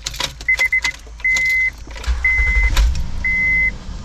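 Keys clicking in the ignition with the dashboard chime beeping in quick runs of four, then a single beep once a second. About two seconds in, the Honda Pilot's 3.5-litre V6 cranks briefly, catches and settles into a steady idle. This is the test start after a new drive belt and tensioner were fitted.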